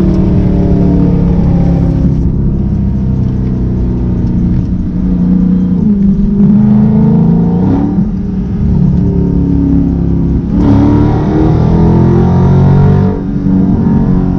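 Dodge Scat Pack's V8 engine running loud, revved up and let back down a few times, its pitch rising and falling over several seconds each time.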